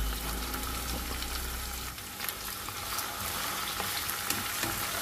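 Minced beef sizzling as it fries in hot oil in a nonstick pan. A wooden spatula stirs and scrapes it, with scattered small clicks. A low rumble underneath stops about two seconds in.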